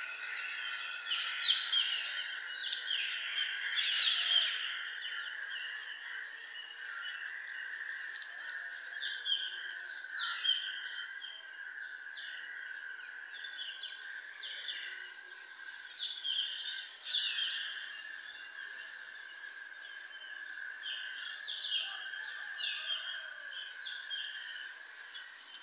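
Small birds chirping in short repeated calls over a steady high-pitched hiss.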